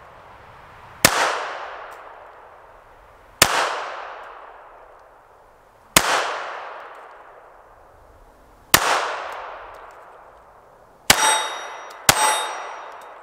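Taurus Spectrum .380 ACP pocket pistol fired six times, slow single shots a couple of seconds apart with the last two about a second apart, each shot trailing off in a long echo. The last two shots carry a brief metallic ring. Fired limp-wristed, the pistol cycles on every shot: it passes the limp-wrist test.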